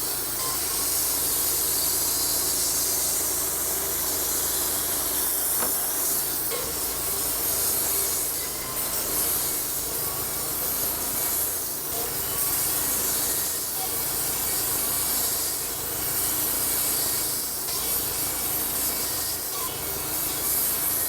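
Wood-Mizer LT-35 portable band sawmill running steadily, its band blade cutting lengthwise through a timber beam with a constant hissing rasp.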